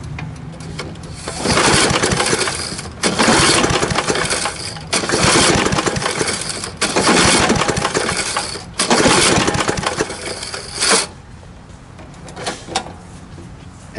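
Recoil starter on a Briggs & Stratton 3.5 hp lawnmower engine pulled five times in a row, each pull cranking the engine over for about a second and a half without firing, during a dry compression test: the spark plug is out, a compression gauge is screwed into the plug hole and the spark is grounded. A short sharp sound follows just after the last pull.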